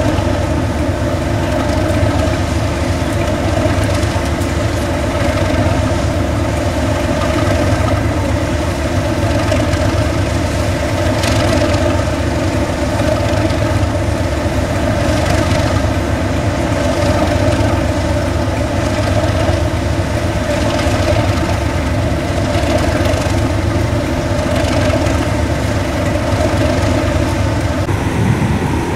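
An engine idling steadily throughout, with a few faint knocks now and then.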